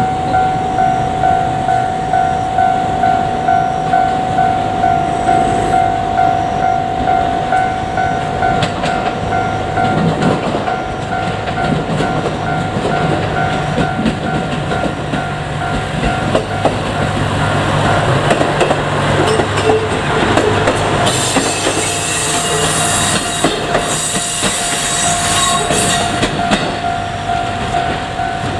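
Japanese level-crossing warning bell ringing with an even, repeating electronic tone, while a JR Kyushu KiHa 200 diesel railcar comes through the crossing: its diesel engine running and its wheels clattering over the rail joints, loudest with a hissing rush and clicks a little past the middle.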